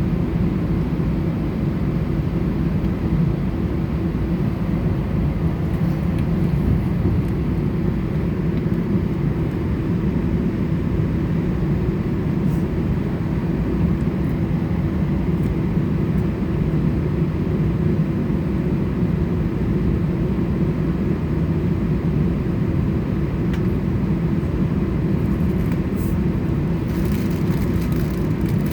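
Airbus A320 engine noise heard from inside the cabin: a steady low rumble with an even hum that neither rises nor falls. A few faint ticks near the end.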